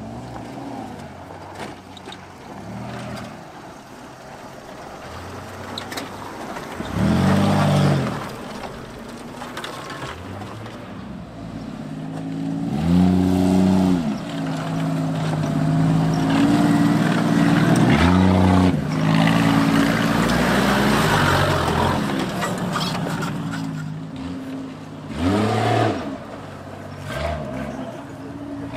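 Off-road 4x4 engines revving in several short bursts, the pitch rising and falling with each, and a longer spell of hard, sustained running in the middle.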